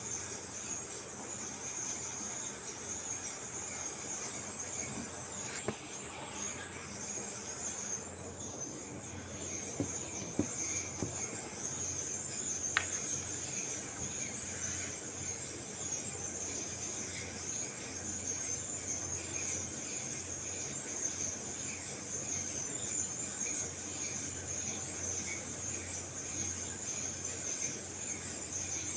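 Steady high-pitched whine over a low hum, the background of a garment factory sewing floor, with a few faint clicks.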